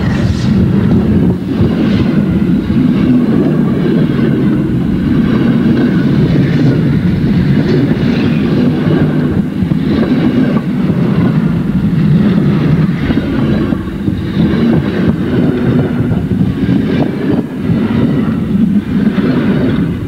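Passenger coaches of a steam-hauled train rolling past close by: a steady heavy rumble with the repeated clatter of wheels over rail joints.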